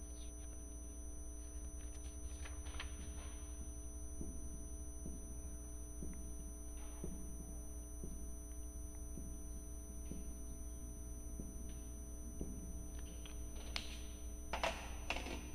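Marker pen writing numbers on a whiteboard: faint short taps and scratches, with a few sharper strokes near the end, over a steady electrical hum.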